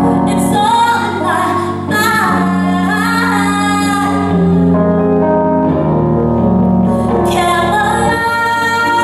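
A woman singing over a Korg Grandstage stage piano and acoustic guitar, with her voice sliding between notes over held chords. The voice drops out for a few seconds in the middle and comes back near the end.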